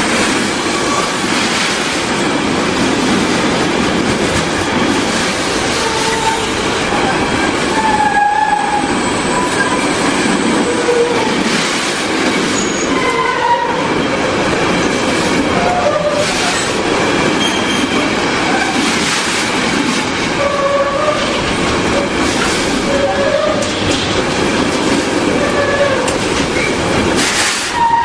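Container freight train passing close by, a steady rumble of wagons with the clatter of wheels over rail joints and short, scattered wheel squeals.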